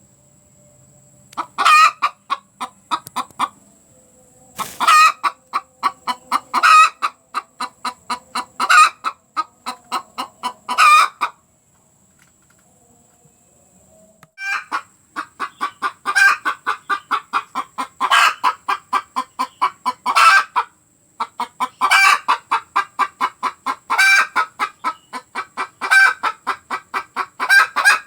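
Hen's egg-laying cackle, the call a hen makes just after laying: quick runs of clucks, each rising to a louder squawk about every two seconds. It stops briefly at the start and for about three seconds in the middle.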